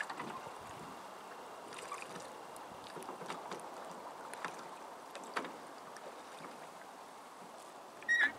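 Quiet ambience from a rowboat on the water: a faint steady wash with scattered light knocks and clicks of the oars, and one short high squeak near the end.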